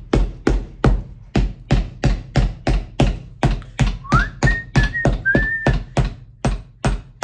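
Background music with a steady, even beat of about two beats a second, and a short whistled melody line in the middle.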